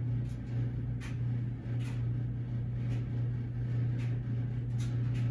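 Steady low hum of room background noise, with a few faint, short, soft sounds spread through it.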